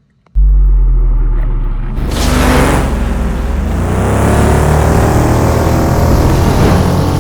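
A loud engine cuts in suddenly with a deep, steady rumble, then revs hard about two seconds in, its pitch climbing.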